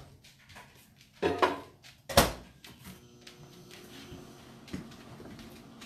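A microwave oven door knocked and banged shut about two seconds in, then the microwave starts and runs with a steady hum.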